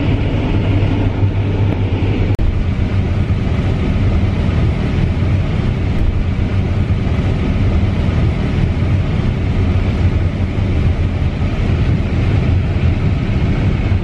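CLAAS combine harvester running while it harvests corn, a steady deep drone of engine and threshing machinery heard from inside the cab.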